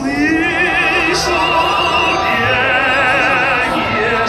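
A solo voice singing long held notes in an operatic style with wide vibrato, over musical accompaniment played through an outdoor concert sound system.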